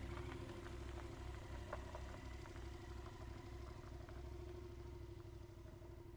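Motorcycle engine idling: a low, even, pulsing throb with small ticks over it, fading slightly toward the end.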